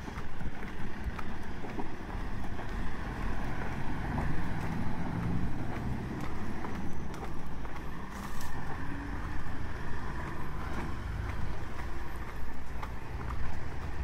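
Footsteps on a paved path at a walking pace, about one a second, over low wind rumble on the microphone and faint outdoor traffic hum.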